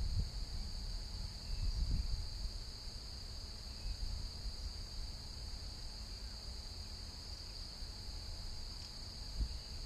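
A steady, high-pitched insect chorus drones without a break, over a low rumble of wind or handling on the microphone with a few soft bumps near the start and near the end.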